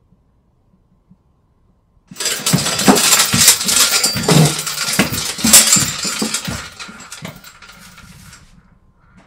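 A sudden loud commotion about two seconds in: a noisy rush full of clattering knocks that gradually dies away over the last few seconds.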